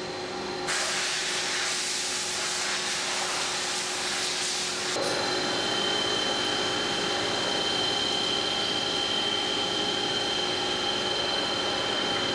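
Lathe turning hardened M-2 high-speed steel at 500 surface feet per minute with a sintered carbide tool, under a hissing coolant spray. About five seconds in, a steady high-pitched whine sets in and holds.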